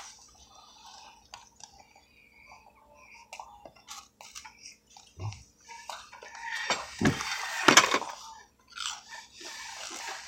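Close-up chewing and mouth sounds of people eating, with scattered small clicks of cutlery and dishes. The sounds are loudest about six to eight seconds in.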